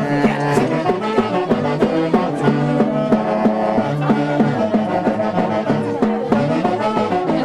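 Band music led by brass horns, playing a melody over a steady beat.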